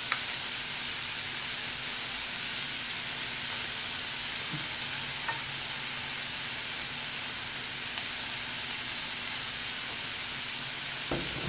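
Lobster tail meat, shrimp, scallops and sliced beef sizzling steadily on the hot grill plate of an electric hot pot and griddle combo, with a few faint taps.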